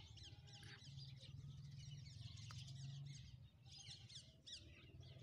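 Faint chorus of small birds chirping, many quick high chirps repeating, over a low steady hum.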